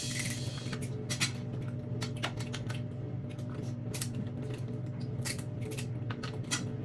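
King crab leg shells being cracked and snipped apart: scattered sharp clicks and cracks over a steady low hum.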